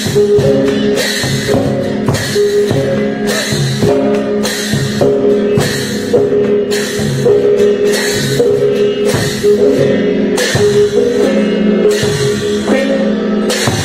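Klong sabat chai ensemble playing: heavy drum strokes at a regular pace, about one and a half a second, over ringing gong and cymbal tones that shift between a few pitches.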